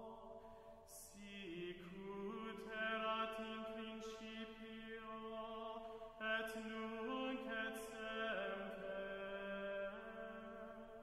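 Slow sung Latin chant: a voice holding long notes that step to a new pitch every second or two, with soft consonants and breaths between phrases.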